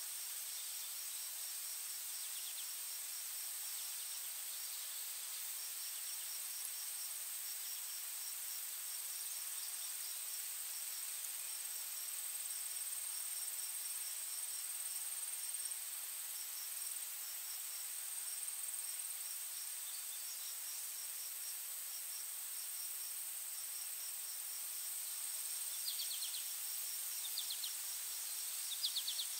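Insects chirping in a steady chorus: a constant high whine with trains of rapid, short, high chirps over it. A few brief, sharper chirps come in near the end.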